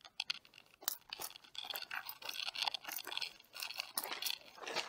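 Fabric rustling and scraping against a body-worn camera's microphone as the wearer moves and turns: a dense run of irregular scratchy crackles.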